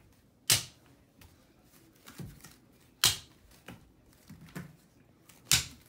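Three sharp hits, about two and a half seconds apart, with a few faint softer taps between them.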